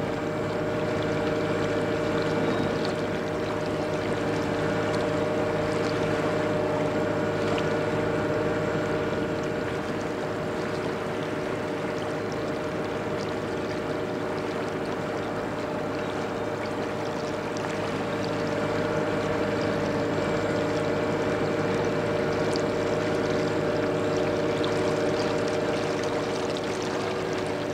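Steady diesel engine drone of inland river barges under way, a constant hum of several tones over a steady rushing noise.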